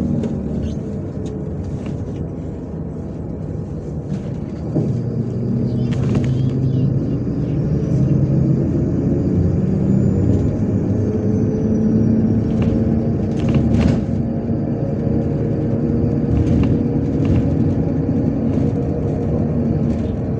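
MAZ-103 city bus heard from inside the cabin while under way: the diesel engine runs with a steady road rumble, getting louder about five seconds in. A couple of sharp knocks come from the body and fittings.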